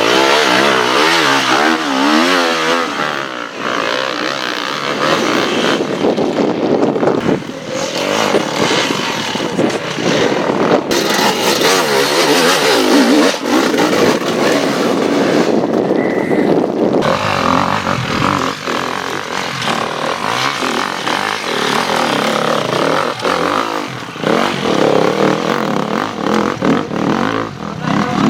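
Enduro motorcycle engine revving hard, its pitch swinging up and down quickly in the first few seconds, then running on loud with throttle blips as the bike is ridden through an extreme test section.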